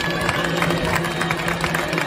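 Crowd noise with music, a steady low held tone running underneath and many short sharp clicks and knocks.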